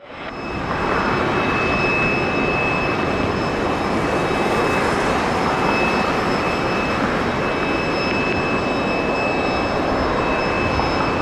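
Airbus A350-900 airliner's Rolls-Royce Trent XWB turbofans arriving on approach: a steady jet roar with a high, even whine at two pitches, fading in at the start.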